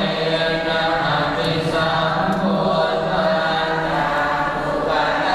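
Buddhist monks chanting together in a low, steady monotone, many voices held on the same pitch.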